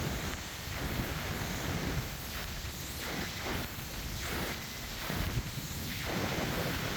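Wind buffeting the microphone over a steady rain hiss, with rustling that swells and fades at a walking pace.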